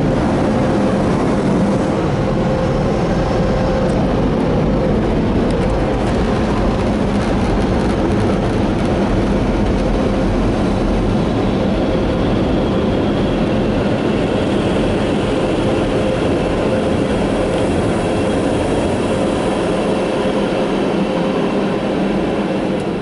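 Car wash blower dryers running at full power: a steady rush of air with a constant hum. They begin to wind down right at the end as the drying cycle finishes.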